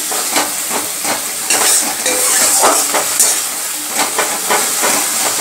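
A metal spatula scraping and stirring a wet spice paste that sizzles in hot oil and ghee in a kadai, with repeated scrapes against the pan over a steady sizzle. This is the paste being fried down (koshano).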